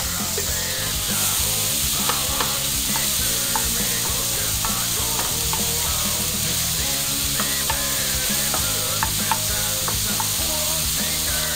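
Diced bacon and onion sizzling steadily as they fry in a frying pan, stirred with a wooden spatula that scrapes the pan now and then. Background music plays underneath.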